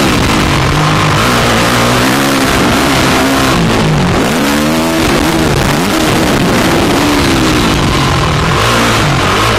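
Dirt bike engine heard from the rider's helmet camera, revving up and down through the gears, its pitch dropping and climbing again several times as it brakes and accelerates around the track, over a steady rushing noise.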